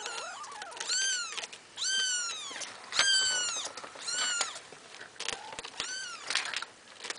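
A month-old Maine Coon kitten mewing over and over, high-pitched, about once a second, each cry falling in pitch at its end. The owner takes the crying as a plea for more food or attention, though it has just been fed.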